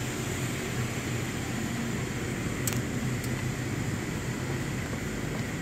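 Steady running noise of a coal-fired power station's boiler-house plant, with a low hum under it. Two short sharp ticks come a little under halfway through.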